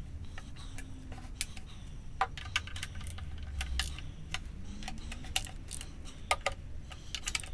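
Small hand ratchet clicking in short irregular runs, with light metal clinks of the socket and extension, as the timing-belt cover bolts of a Subaru EJ25 engine are run in by hand.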